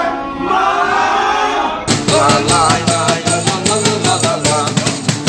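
Music: a sung passage, then about two seconds in a sudden change to a track with a steady drum beat.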